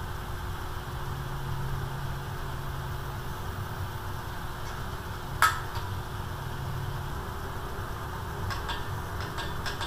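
Hand wrenches on the camshaft thrust-plate bolts of a Ford 302 V8 block, tightened a little at a time toward torque: one sharp metallic click about halfway through and a few light clicks near the end, over a steady low hum.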